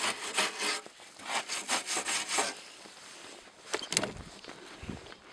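Rapid scraping strokes on the Jøtul 606 stove's cast iron, about four a second, stopping after a couple of seconds, then a single sharp click.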